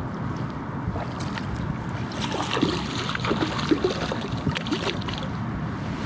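Water splashing and sloshing as a big hooked smallmouth bass thrashes at the surface beside the boat while a landing net is worked under it. It plays over steady wind and water noise, and the splashing picks up about two seconds in.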